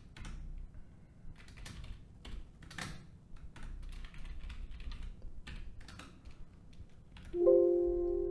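Typing on a computer keyboard: irregular keystroke clicks as a name and username are entered. Near the end a loud musical chord of several held notes sounds and rings on.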